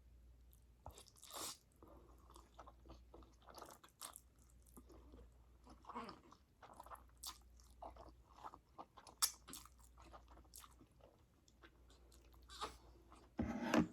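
Close-miked chewing of a mouthful of spicy black bean instant noodles: an irregular string of short, wet mouth smacks and clicks, with one louder sound near the end.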